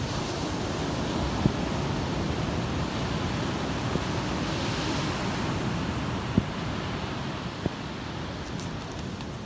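Steady rush of surf breaking on the beach, with wind on the microphone. Four short, faint thumps of distant fireworks come at intervals, the third the loudest.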